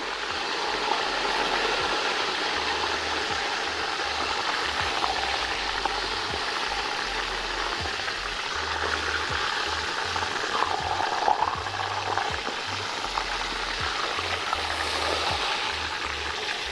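Chicken pieces sizzling steadily as they brown in a pot, being turned over with tongs to colour the other side.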